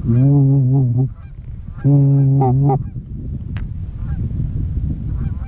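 Hunter's goose call blown in two long, low, drawn-out honks of about a second each, calling to an incoming flock. Fainter, shorter goose clucks and honks come between and after them.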